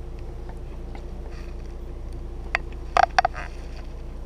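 Steady low hum inside a car's cabin, with a few short clicks about three seconds in.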